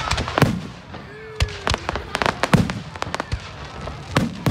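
Fireworks display: a rapid, irregular run of sharp bangs and crackling reports, with a few deeper booms among them.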